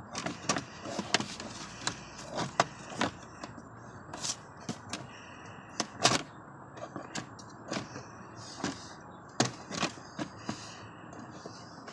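Irregular clicks and knocks of the Honda Odyssey's plastic glove box being worked loose and pulled out of the dashboard.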